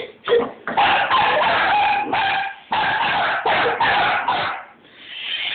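Border collies barking in quick runs at a remote-control toy car, mixed with the whine of the toy car's electric motor as it drives, with brief pauses about halfway and near the end.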